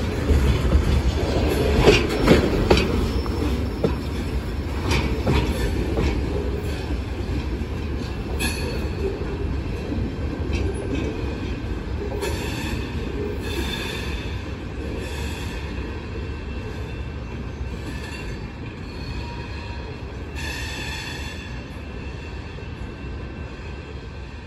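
Freight cars rolling past on steel wheels. Sharp clacks over the rail joints come in the first few seconds, then squealing comes and goes as the end of the train moves away and the sound slowly fades.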